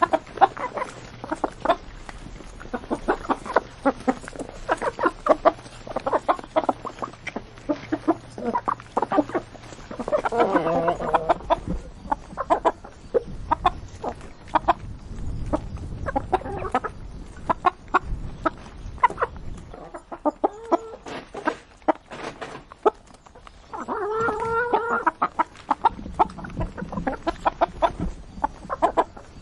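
Chickens clucking while feeding: a steady run of quick, short clucks, with two longer drawn-out calls, about ten seconds in and again near twenty-four seconds.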